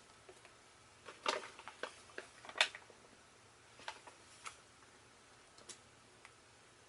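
Hard plastic toy parts of a Transformers action figure clicking and tapping as they are handled and folded, a quick cluster of clicks in the first few seconds and a few single clicks later.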